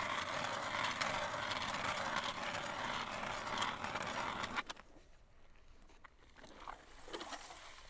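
Hand ice auger's two shaver blades scraping through ice as the handle is cranked, a steady rasping hiss that stops abruptly about two-thirds of the way in.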